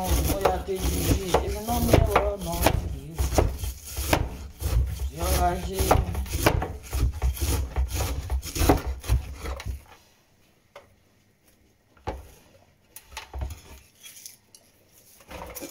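Cleaver chopping cabbage on a wooden board: quick, repeated knocks of the blade on the wood, with a voice in the background. After about ten seconds the chopping stops and only a few scattered knocks remain.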